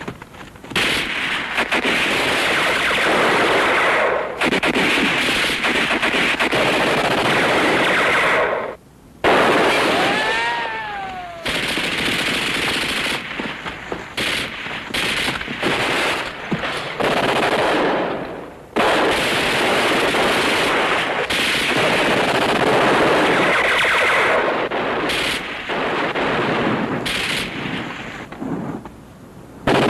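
Heavy automatic-weapons fire, machine guns and rifles shooting in long dense bursts, as in a war-drama battle soundtrack. The firing breaks off briefly about nine seconds in, followed by a whine that falls in pitch.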